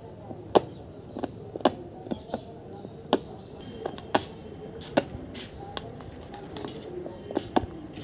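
A puppy's teeth knocking and gnawing on a weathered wooden plank: about a dozen sharp, irregular pecking taps.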